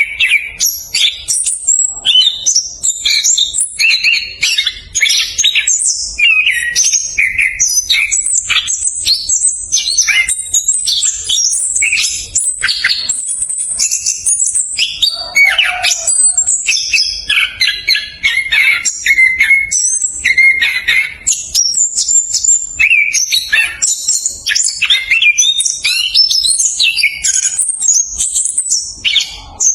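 Chestnut-capped thrush (anis kembang) singing a fast, dense rolling song: a rapid run of varied whistles and chattering notes with hardly a pause.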